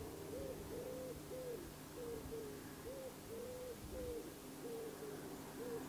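A dove cooing in a quick run of short, rounded notes, about two a second.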